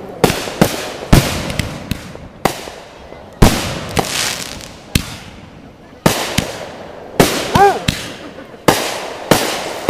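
Fireworks going off in quick succession: more than a dozen sharp bangs, roughly one every half second to second, each trailing off.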